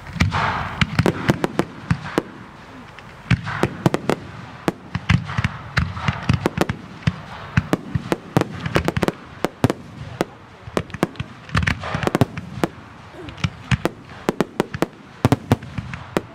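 Aerial firework shells bursting in a dense, irregular barrage of sharp bangs, several a second, with crackling between them.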